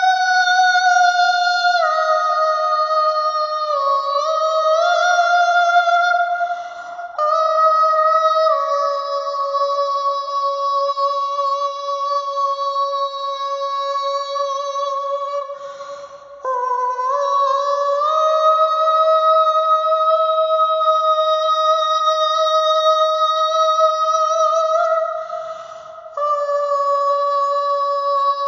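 Wordless vocal background: a high voice holds long sustained notes of several seconds each, stepping up and down between pitches, with short breaks about a quarter, a half and nine-tenths of the way through.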